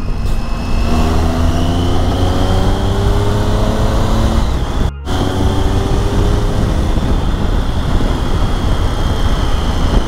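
Triumph Tiger 800's inline three-cylinder engine running under way, its pitch rising steadily as the bike accelerates, with wind rushing over the helmet microphone. About halfway the sound drops out for an instant, then the engine runs on at a steady cruise.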